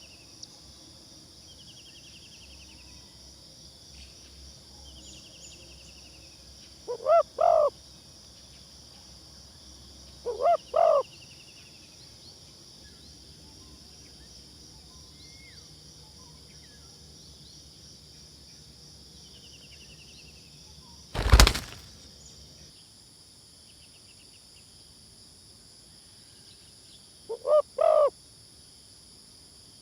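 Spotted dove cooing three times, each call a short run of low coo notes, over a steady high insect drone. About two-thirds of the way through there is one loud sharp knock.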